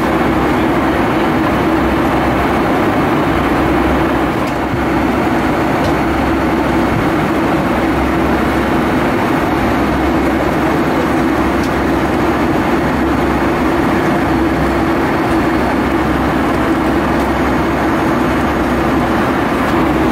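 Steady cabin noise inside a Boeing 757-300 at cruise altitude: the even rush of airflow and engines, with a low hum running through it.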